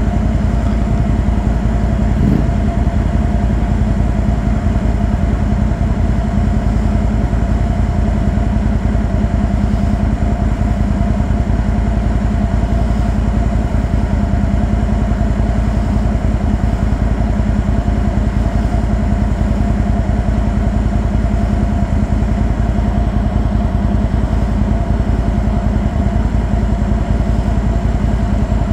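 Can-Am Outlander XMR 1000 ATV's V-twin engine running at a steady, even pitch, without revving up or down.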